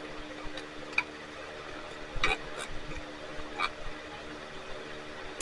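A few light clicks and taps of a hand tool probing inside a string trimmer's fuel tank to catch the fuel line, over a steady low hum.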